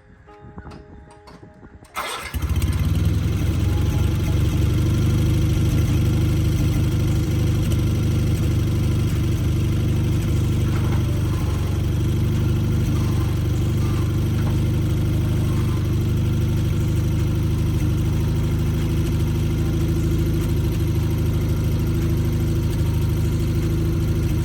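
Sears Craftsman FF garden tractor engine starting about two seconds in, then running steadily at a fast idle. Faint clicks come before it.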